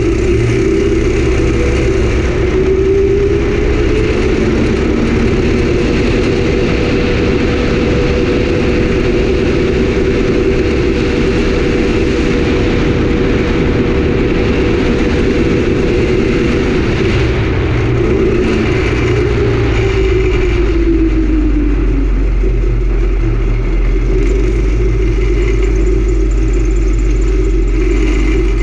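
Homemade go-kart's swapped-in 18 hp engine running under load. Its pitch climbs in the first few seconds, holds steady, then drops about twenty seconds in as it eases off.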